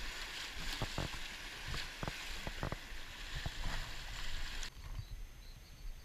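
Fast river water rushing and splashing around a boat running a riffle, with scattered sharp knocks. About two thirds through, the rushing cuts off suddenly, leaving much quieter water.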